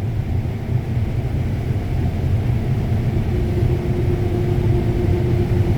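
Combine harvester running steadily with a heavy low rumble while picking corn. About three seconds in a steady hum joins it as unloading begins into the grain cart.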